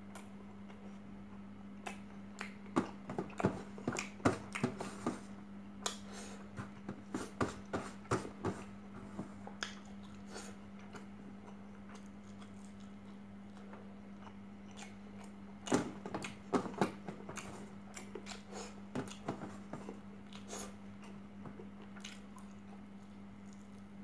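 Close-up chewing and mouth clicks of a person eating chicken and rice by hand, in two stretches: one a few seconds in, another just past the middle. A steady low hum runs underneath.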